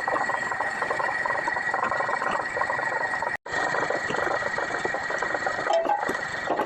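Hitachi LX50 wheel loader running: a steady high whine over dense mechanical rattling, broken by a brief dropout about three and a half seconds in.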